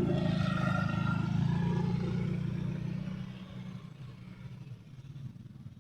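Heavy diesel engine running at a steady speed, then fading away after about three seconds.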